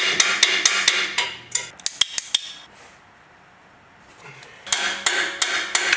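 Metal hand tool clicking rapidly against metal in a car's engine bay, about four or five sharp clicks a second, stopping for a second or two around the middle and then starting again. It is an attempt to work loose a seized part soaked in penetrating oil, and the part does not come free.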